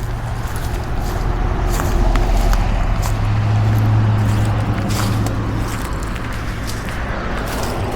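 A motor vehicle's engine running past at close range, its low hum swelling in the middle and then easing off.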